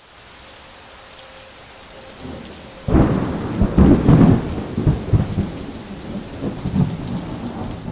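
Steady rain hiss, then a sudden loud thunderclap about three seconds in, followed by thunder rolling on in irregular swells.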